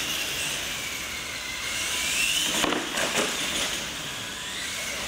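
Radio-controlled monster trucks' electric motors and gears whining as they race, the whine falling and then rising in pitch with their speed. A couple of sharp knocks come about two and a half to three seconds in.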